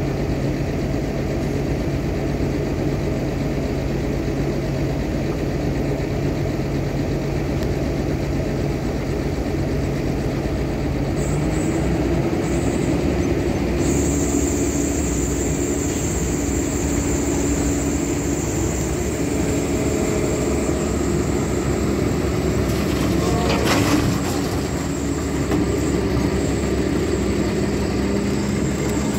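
Caterpillar excavator's diesel engine running steadily close by. About twelve seconds in it speeds up, and a high steady whine joins it soon after as the boom is worked. A single clunk comes about twenty-four seconds in.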